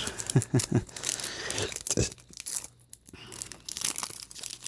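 Trading-card booster pack wrapper being torn open and crinkled: irregular crackling rustles with many short rips.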